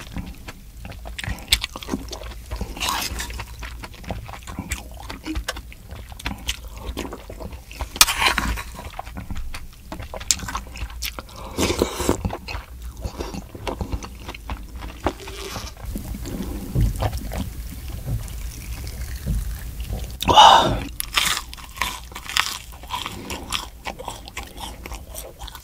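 Close-miked eating sounds: a spoon scraping and clinking in a stone pot, and chewing of loach soup with rice, with several louder mouth sounds along the way. Near the end come crunchy bites of deep-fried loach.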